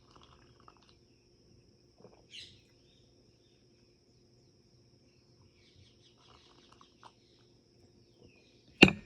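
Faint bird calls: a short chirp about two seconds in and a few scattered chirps later, over a steady high-pitched whine. A sharp knock near the end is the loudest sound.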